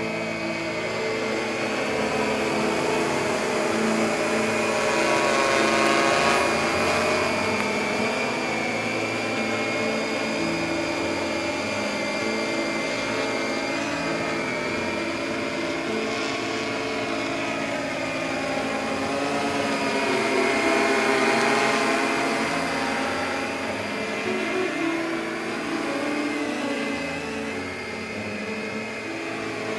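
Hexacopter's electric motors and propellers whining in a hover, several tones wavering and stepping in pitch as the rotor speeds keep adjusting to hold attitude against the wind. The sound swells twice, about six seconds in and again about twenty-one seconds in.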